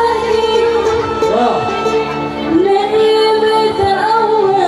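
Gambus band music with a woman singing a melody of long, bending held notes over the accompaniment.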